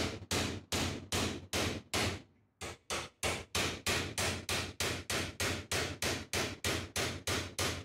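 Steel hammer rapidly striking a chisel held against a rusty leaf spring from a Land Rover Series 2, clamped in a vise, to get the spring apart: clanging metal-on-metal blows about three to four a second, with a brief pause a little over two seconds in before the strikes resume slightly faster.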